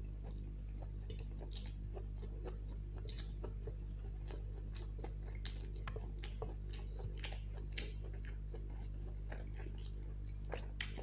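Close-miked chewing of chow mein noodles, with many short, wet mouth clicks and smacks scattered irregularly through it, over a steady low hum.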